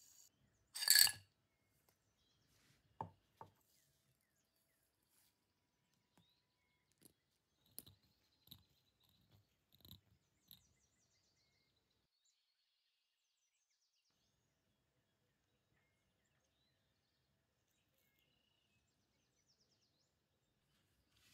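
A short scrape or rub about a second in, then a scatter of small clicks and taps of small parts and tools being handled at a workbench, ending in quiet.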